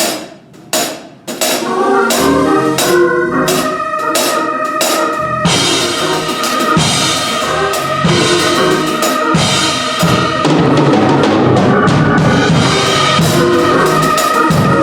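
Gospel church band starting up: a few sharp drum-kit hits, then organ and drums playing together with a steady beat.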